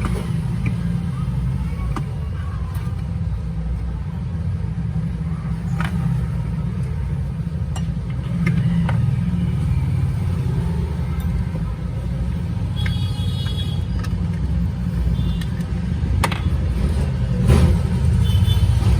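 Steady low background rumble, with a few scattered light clicks and some short high chirping tones in the second half.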